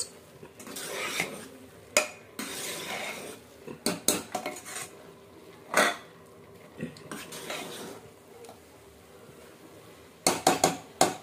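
A metal spoon stirring and scraping thick grated-carrot halwa in a pressure cooker, with sharp clinks as it strikes the pot's metal side. A quick run of clanks comes near the end.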